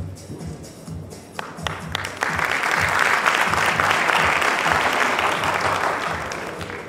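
Audience applause: a few scattered claps about a second and a half in, swelling into full applause that fades near the end, over background music.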